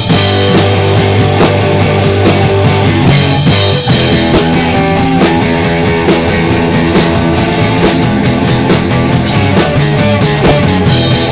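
Rock band playing loudly: electric guitar and bass holding low chords over drums, changing chord about four seconds in.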